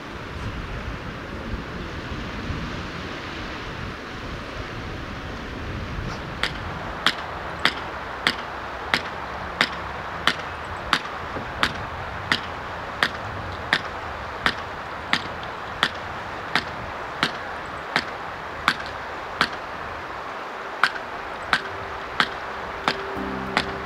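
A steady rushing hiss; about six seconds in, sharp even taps begin and keep going at about three every two seconds. A steady musical note comes in near the end.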